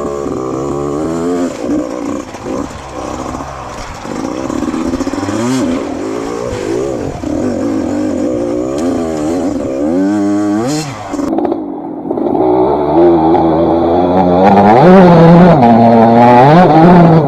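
85cc two-stroke dirt bike engine revving, its pitch rising and falling again and again as the throttle is worked, louder over the last few seconds.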